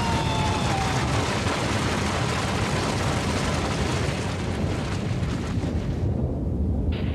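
Avalanche sound effect in an animated soundtrack: a loud, dense rumble whose hiss thins out about six seconds in, leaving only the low rumble.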